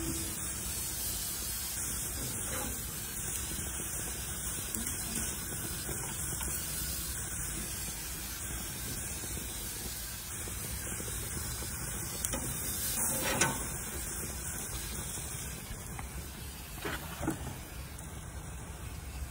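Ribeye steaks sizzling on a gas grill, a steady hiss, with a couple of brief knocks about two-thirds through and again near the end.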